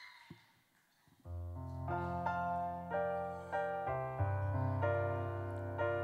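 Piano playing a slow intro, starting about a second in: chords over held low bass notes, changing every second or so.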